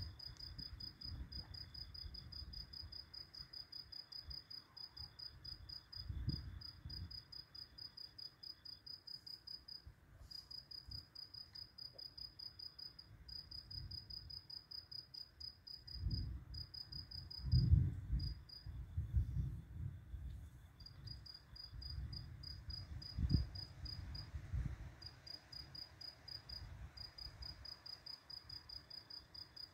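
A cricket chirping steadily in a rapid, even run of high pulses, with low rumbles of distant thunder swelling and fading several times underneath; the loudest rumble comes a little past halfway.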